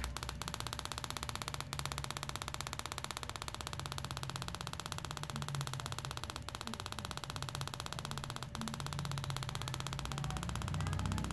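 KTM 1190 Adventure stick ignition coil on a test bench firing its spark plug over and over: a steady, rapid train of sharp spark snaps with a low hum underneath.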